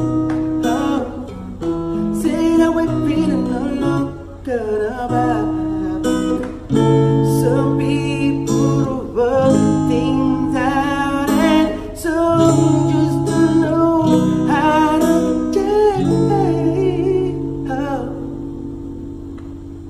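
Acoustic guitar played behind the player's head, ringing chords that change every second or two, with wordless singing over them; the music fades out near the end.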